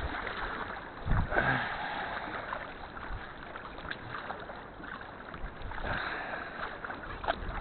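Sea kayak being paddled, with paddle blades dipping and water splashing and lapping against the hull. There is a louder splash about a second in and another around six seconds.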